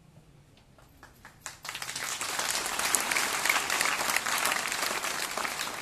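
Seated crowd of schoolboys applauding. A few scattered claps come first, then the clapping swells about a second and a half in and starts to thin out near the end.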